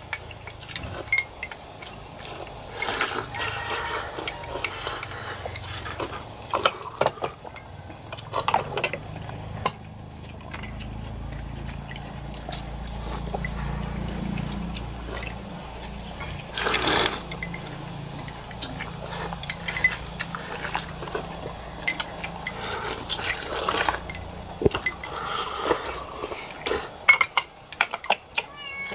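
Eating at a table of pho bowls: slurping and sloshing of noodle broth, with chopsticks, spoons and bowls clicking and clinking. A low rumble sits under it for a few seconds in the middle.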